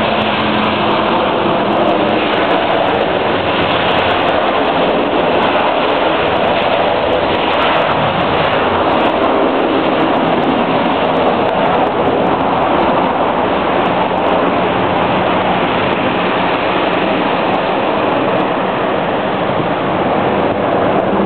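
Airbus A380 taking off, its four jet engines at takeoff thrust giving a loud, steady roar.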